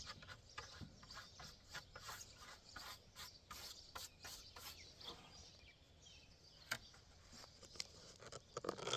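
Faint, irregular rubbing and scraping of hands and objects against a freshly sawn black walnut slab, with one sharp click about two-thirds of the way through.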